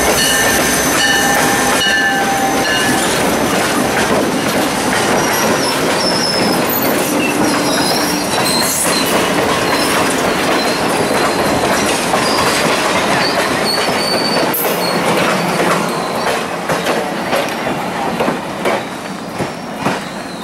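Diesel-hauled passenger train passing close by, with the locomotive's engine giving way to the steady rumble of the cars, wheels clicking over rail joints and squealing in short high bursts. The sound thins out near the end as the last cars go by.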